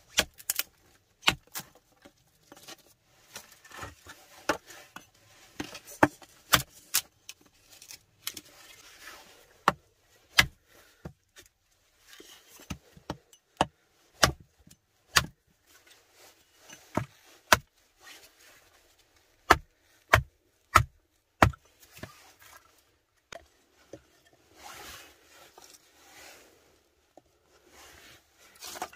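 Hatchet splitting dry wood into kindling: a series of sharp, irregular chopping strikes, some quick pairs, others a second or more apart. Near the end the strikes give way to a soft rustle of sticks and dry pine needles being handled.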